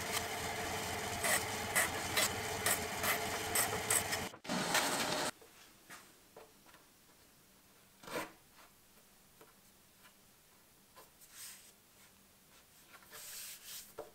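Benchtop bandsaw running and cutting into a wooden dowel, a steady hum with repeated short rasps for about four seconds. Then, much fainter, a few wooden knocks and rubs as a dowel bench dog is pushed and turned in a round hole in the wooden bench top.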